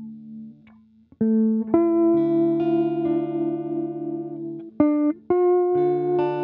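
Guitar music: plucked notes and chords, each ringing on with a long sustain, after a short break about a second in.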